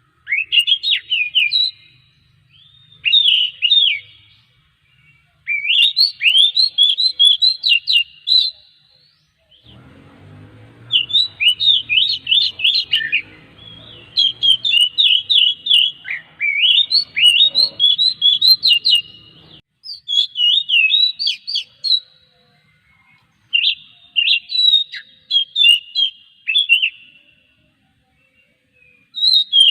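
Oriental magpie-robin singing: a string of loud phrases of quick, sweeping whistled notes, broken by short pauses. A faint low background noise runs under the song from about a third of the way in to about two thirds.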